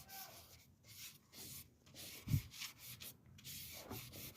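A bare hand rubbing mineral oil into a wooden cutting board: quick back-and-forth strokes of palm on wood, about three a second, with one soft low thump a little past halfway.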